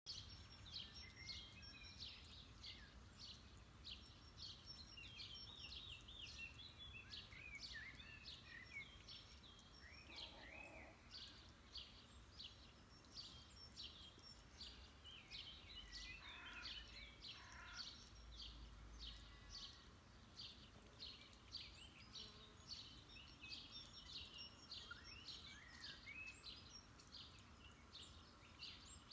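Faint chorus of songbirds: many short, high chirps and trills overlapping without a break.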